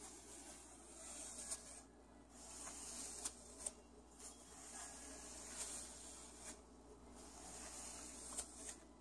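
Faint rustling of a hand stroking and rubbing a cockatoo's feathers, coming in strokes of a second or two, with a few small clicks.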